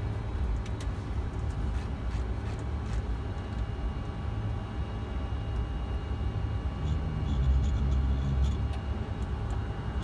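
Flight-deck noise of a Boeing 747-400 taxiing: a steady low rumble with a few faint steady tones and scattered light clicks. The rumble swells louder from about seven to nine seconds in.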